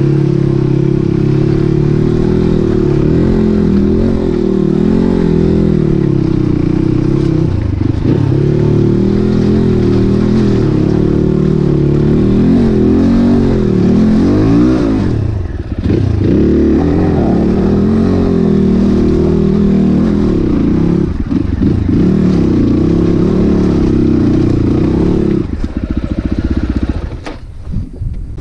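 250cc Crossfire dirt bike engine pulling along a rough off-road trail, its pitch rising and falling with the throttle and easing off briefly about halfway through. Near the end it drops away.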